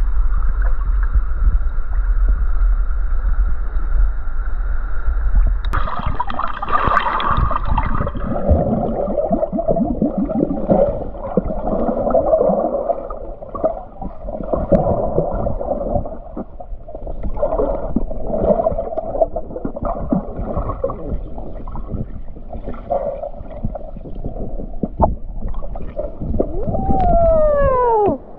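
Muffled underwater sound of a river picked up by a submerged camera: gurgling, bubbling water with irregular knocks and scrapes. For about the first six seconds it is a steady low rumble with a constant hum, then it turns busy and uneven.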